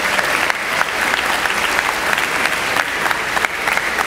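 An audience of students clapping, dense and steady applause, greeting an award winner as her name is announced.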